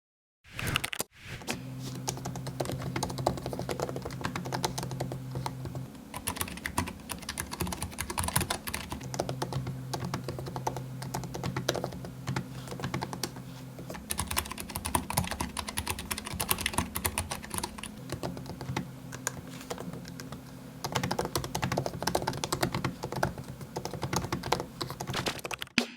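Fast continuous typing on keyboard keys, a dense run of clicks, comparing the MacBook Pro 15 (2018) built-in butterfly keyboard with the Keychron K3 low-profile optical mechanical keyboard. It starts about half a second in.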